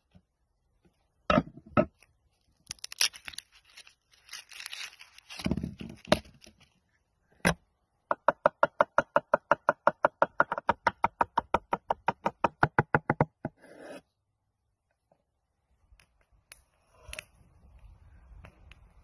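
Steel cleaver on a wooden cutting board working garlic: a few separate knocks and crackly, tearing handling sounds, then a fast, even run of chopping strokes, about eight a second for some five seconds, as the cloves are minced. A couple of faint knocks follow near the end.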